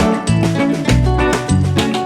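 Background music with a steady upbeat rhythm, bass and percussion.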